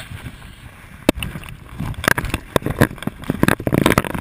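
Irregular knocks, clicks and scrapes of a firefighter's gear and hose line moving against a helmet-mounted camera, denser from about two seconds in.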